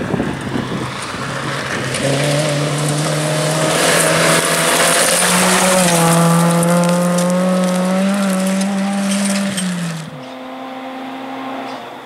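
Toyota Corolla hatchback rally car driven hard on gravel: the engine note rises as it accelerates, holds high while it passes close with gravel spraying from the tyres, then drops away about ten seconds in. A fainter engine of another car follows.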